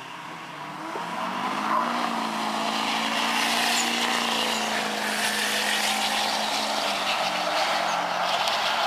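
A lifted pickup truck and a car running a drag race at full throttle, engines and tyres loud as they pass and pull away down the strip. The engine note builds over the first couple of seconds, then holds steady.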